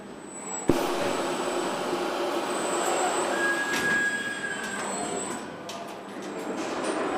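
Car-factory assembly-line machinery running: a sharp clack just under a second in, then a steady mechanical rumble with a brief high whine near the middle.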